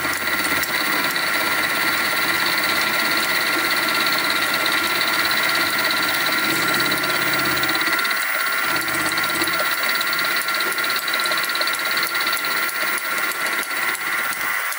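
Sieg SX2P mini-mill running, its end mill taking the final milling pass through the workpiece: a steady machine whine of several held tones over a constant cutting noise, with the low hum dropping away briefly about eight seconds in.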